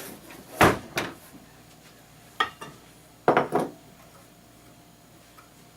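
A few separate knocks and clatters of hard objects set down and handled on a workbench: a pair of knocks about half a second in, a single tap near the middle and another cluster a little after.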